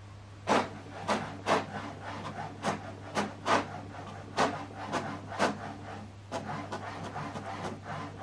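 HP DeskJet 4120e inkjet printer printing a page: short swishing passes of the print carriage come about twice a second over a steady low hum.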